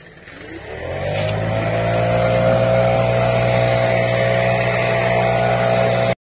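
An engine revs up over about a second and a half and then runs at a steady high speed. It breaks off abruptly near the end.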